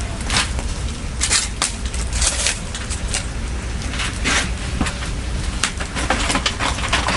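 Wood bonfire crackling, with irregular sharp snaps and pops over a low steady rumble.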